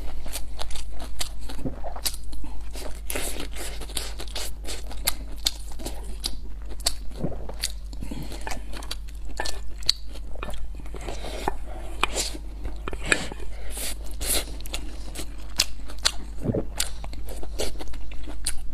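Close-up eating sounds: chewing and biting with many small, irregular clicks and smacks of the mouth, over a steady low hum.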